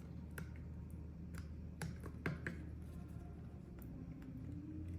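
Light plastic clicks and taps, about half a dozen at irregular intervals, as the HTC Vive Tracker 3.0's plastic housing is worked back into place around its edge, over a low steady hum.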